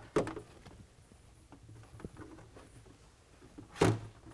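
Light handling noise from hand work on the underside of a raised pickup hood, with two sharp taps: one just after the start and a louder one near the end.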